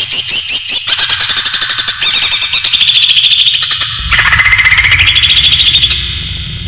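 Green leafbird (cucak ijo) calls played as a trapping lure: fast runs of sharp, high chattering notes in repeated phrases, switching to a new phrase every second or two and fading near the end, over a low background noise.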